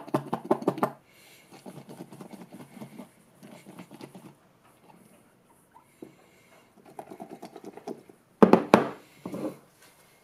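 Cucumber pieces in a soy-based marinade sloshing and rattling inside a closed glass food container with a snap-lock lid as it is shaken in several bursts. The loudest shakes come near the end.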